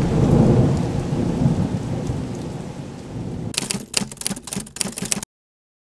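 Thunder rumbling and slowly dying away over heavy rain. Near the end come about a second and a half of sharp, irregular clicks and taps, then the sound cuts off suddenly.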